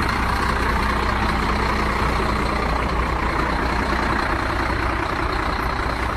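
Garbage truck engine running steadily with a low rumble.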